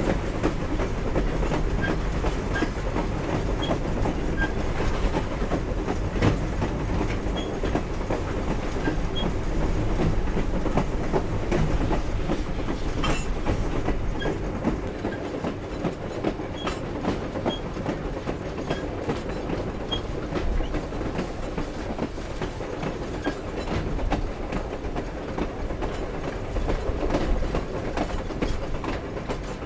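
Steam-hauled passenger train cars rolling along the track: a steady rumble with the clickety-clack of wheels over rail joints and the clanking of the cars. It eases slightly about halfway through.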